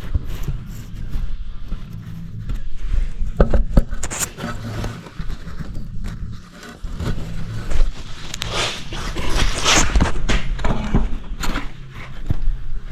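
Metal clinking, knocking and scraping as a snowblower's new roller chain and its master link are handled and fitted, with a longer scraping stretch about two-thirds of the way through, over a low steady hum.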